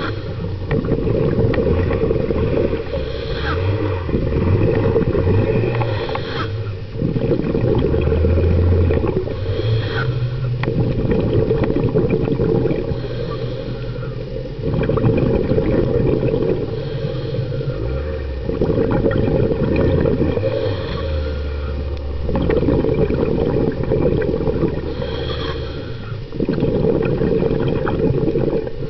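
Scuba diver breathing through a regulator, heard underwater: a hiss on each inhale and a rumble of exhaled bubbles, repeating about every three to four seconds.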